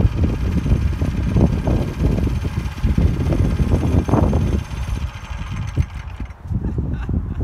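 Predator 212cc single-cylinder four-stroke engine on a home-built snowbike idling with an uneven low rumble, then cutting off about six seconds in.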